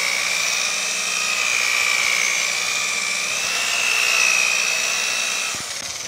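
Rotary polisher spinning a foam pad against a painted truck door, polishing the clear coat with cutting compound. A steady high motor whine, its pitch rising a little about four seconds in, then winding down near the end as the polisher is lifted off the panel.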